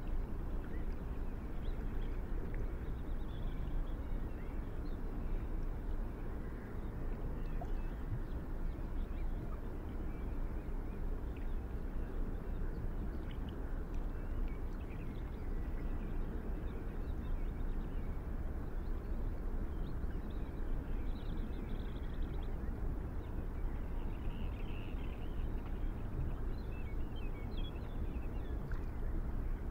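Steady low outdoor background noise, with faint high bird-like chirps now and then, more of them in the second half.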